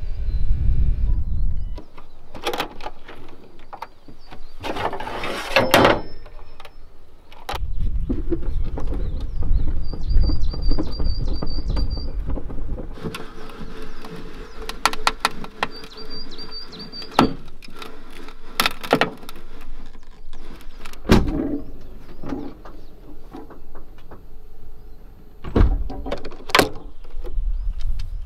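Squeaks, clicks and knocks of a camping trailer's metal fittings and hatches being handled during setup, with a low rumble at times. Two short runs of high bird chirps in the middle.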